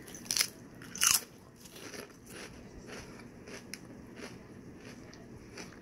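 Biting into a wavy-cut potato chip: two loud crunches in the first second or so, then quieter crunchy chewing.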